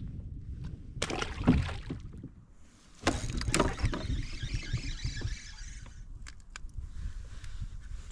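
Handling sounds in a fishing kayak: sharp knocks about a second in, then more knocks with a hissing rush of water from about three to six seconds in, over a steady low rumble.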